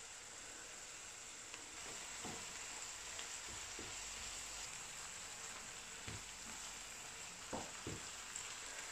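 Chopped greens, garlic and cheese sizzling faintly in a frying pan as they are stirred with a wooden spoon, with a few soft knocks of the spoon against the pan.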